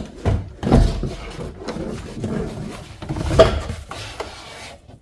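A car's roof lining (headliner) being folded and worked out through the door opening: irregular rustling, scraping and knocking, with louder knocks about a second in and after about three seconds.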